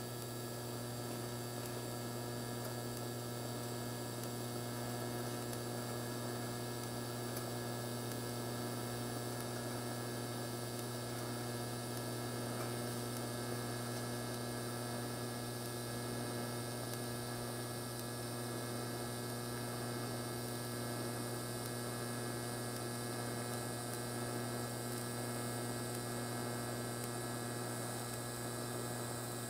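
TIG welding arc giving a steady electrical hum as the corner of a tubing joint is welded with filler rod.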